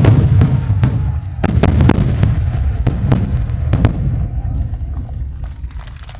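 A barrage of large aerial firework shells bursting in quick succession: deep booms over a continuous crackle, the sharpest reports clustered in the first four seconds, then fading.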